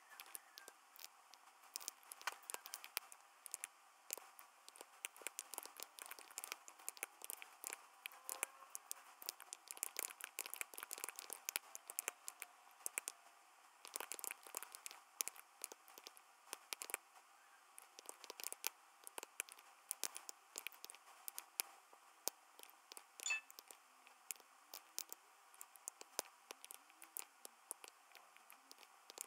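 Computer keyboard typing: faint, quick, irregular key clicks in runs with short pauses.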